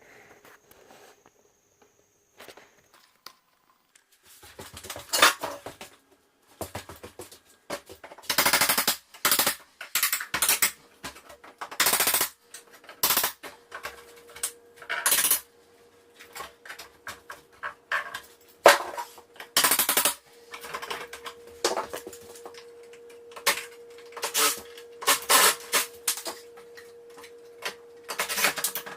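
Window trim being pried and pulled off: an irregular run of sharp knocks, cracks and short scraping bursts, starting after a few quiet seconds.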